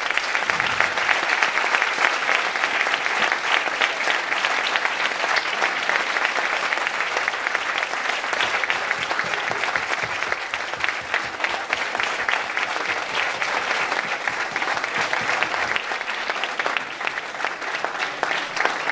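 Crowd applauding: a long, steady round of clapping from many hands, easing off slightly near the end.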